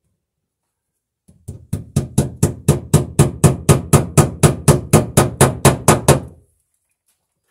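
Hammer driving a cable staple into a wooden beam: about twenty quick, even blows at roughly four a second, starting about a second in and stopping about six seconds in.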